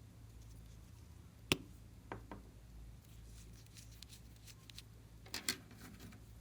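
Glossy slime being pressed and worked by hand, giving off scattered sharp clicks and pops: one loud click about a second and a half in, two softer ones just after, light ticking, and a louder double pop near the end, over a faint steady hum.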